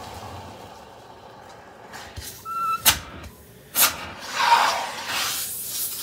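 Handling noises from a central vacuum hose and wand: a few sharp knocks, a brief whistle and a short rush of air, with no steady motor sound.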